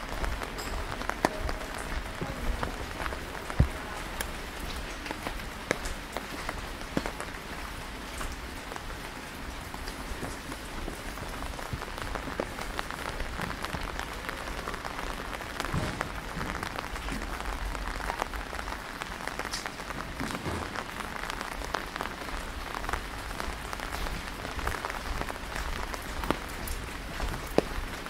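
Steady rain falling, an even hiss with many separate drops ticking sharply on nearby surfaces.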